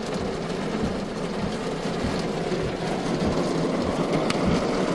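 Rain from a supercell's precipitation core falling steadily on a car's roof and windows, heard from inside the cabin, with no hail in it.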